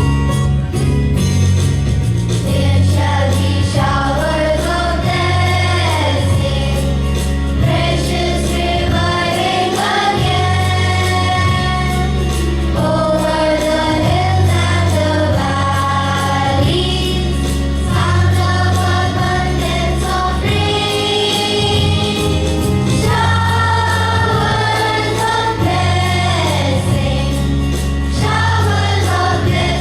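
A choir singing a Christian hymn as a morning prayer song, over instrumental backing with a steady, repeating bass line.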